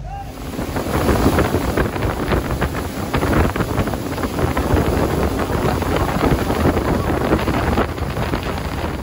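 Wind buffeting the microphone and water rushing and spraying past the hull of a speedboat running at speed, with the Mercury outboard motor running underneath. The gusting starts abruptly at the beginning and stays loud and uneven throughout.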